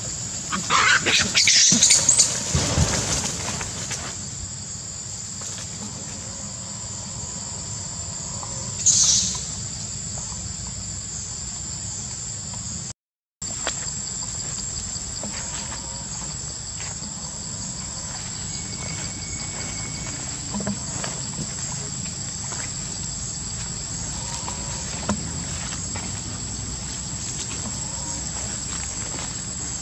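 Steady high-pitched insect chorus of cicadas or crickets. In the first few seconds a baby macaque gives loud, high screeching cries, with another short cry about nine seconds in. The sound cuts out briefly about halfway.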